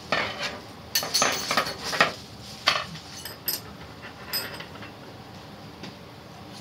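Small metal hardware being handled: a clear plastic parts bag rustling and a steel rod clinking as it is picked up, with a run of sharp clicks and rattles in the first three seconds and a few lighter clicks after.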